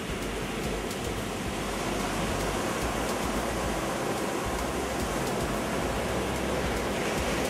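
North Sea surf breaking on a sandy beach: a steady rushing wash of waves and foam.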